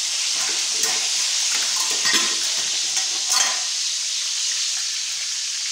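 Minced garlic sizzling in hot oil in an aluminium wok, a steady hiss, with a metal slotted spoon scraping and clinking against the pan a few times as it is stirred.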